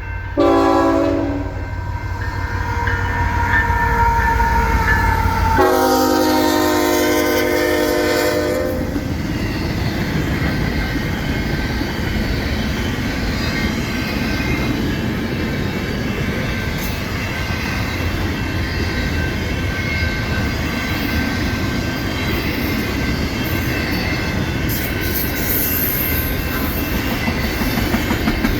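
Freight train led by a GE ET44AC diesel-electric locomotive sounding its horn in several blasts over the first nine seconds or so, over a heavy low diesel rumble that drops away about five seconds in. After that comes the steady rolling rumble and rail clatter of the intermodal well cars passing.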